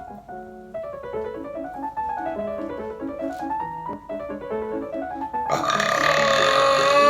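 Light piano background music, then a little over five seconds in a long, loud burp that lasts about two seconds.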